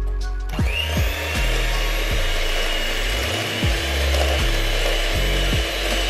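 Electric hand mixer switching on about half a second in, its motor whine climbing briefly and then holding steady as the beaters churn cream cheese, butter and flour in a glass bowl.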